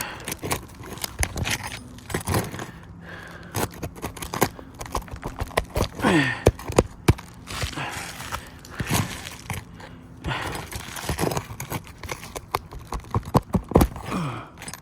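Metal roofing snake scraping and clicking under roof shingles as it works a nail loose: irregular sharp knocks and scrapes, with a short falling squeak about six seconds in.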